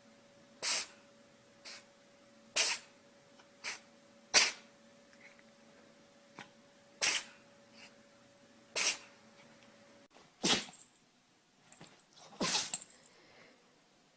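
A pet sneezing over and over, in short sharp sneezes one to two seconds apart over a faint steady hum. About ten seconds in the hum stops and two more sneezes follow, the last a little longer.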